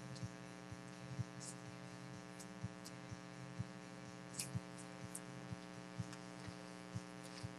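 Low, steady electrical hum with faint, scattered clicks and ticks.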